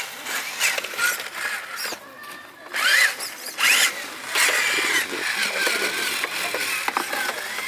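Radio-controlled monster truck driving over grass, dirt and rocks, a high whine rising and falling as the throttle changes, over the rustle of its tyres.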